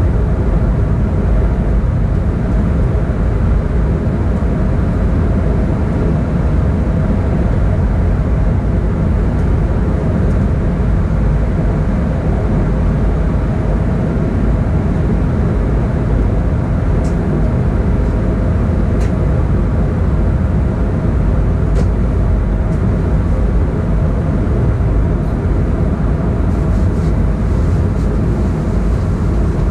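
Siemens Desiro ML (AM08) electric multiple unit running at speed, giving a steady, loud rumble and rush of running noise with a steady hum through it. A few faint clicks come in the second half.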